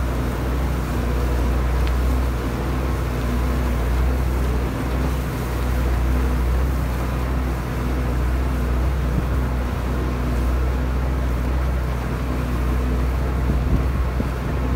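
Tractor-driven Cloverdale 500 T vertical mixer running steadily under load: an even, deep drone from the tractor engine and mixer drive, with a steady hum, as the auger tears through a wet, frozen corn-stalk bale.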